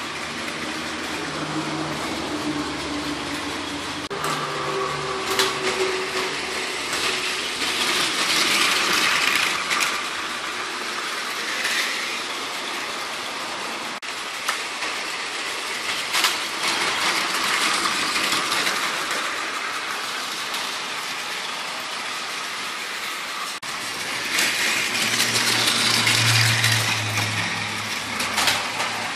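Battery-powered Plarail toy trains running on plastic track: a steady mechanical whirr with occasional clicks, swelling louder three times as a train comes close.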